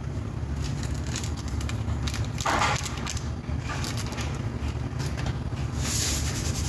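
Seasoning crumbled by hand over a plate: crackly rustling and small clicks, with a louder rustle about two and a half seconds in and another near the end, over a steady low hum.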